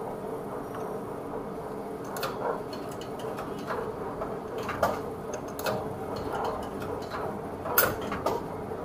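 Euro coins dropped one at a time into a ticket vending machine's coin slot, each giving a sharp metallic click as it drops into the mechanism, the loudest about five and eight seconds in, over a steady background hum.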